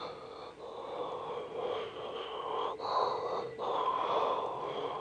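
A person imitating a train by mouth: a steady droning voice that grows louder, broken by two short pauses a little past the middle.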